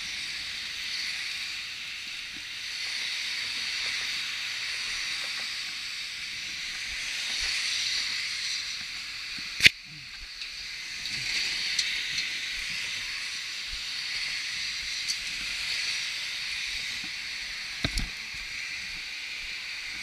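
A steady hiss, broken by one sharp click about halfway through and a smaller knock near the end.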